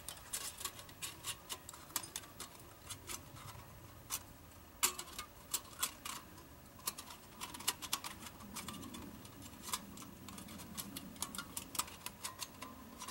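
Light, irregular metal clicks and taps as the thin titanium panels of an Emberlit folding wood stove are handled and slotted together by their tabs.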